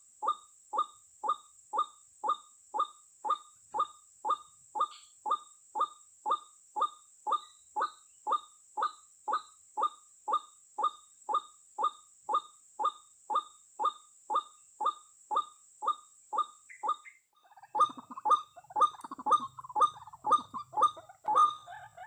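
White-breasted waterhen (ruak-ruak) calls repeated in a very steady rhythm, about two short calls a second. About 17 s in the sound changes abruptly to a denser, less regular run of overlapping calls.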